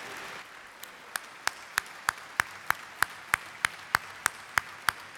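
Audience applause that fades after a moment into sharp single claps repeating evenly, about three a second, over a soft crowd hush.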